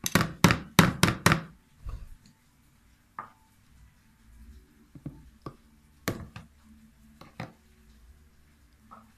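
Metal spoon knocking against a glass jar and a plastic tub while pickled green papaya is spooned into the jar: a quick run of five sharp knocks at the start, then scattered, lighter knocks.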